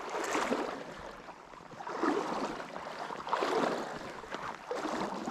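Water sloshing and splashing as a person wades upstream through a trout stream, in surges about every second and a half, over the stream's steady rush.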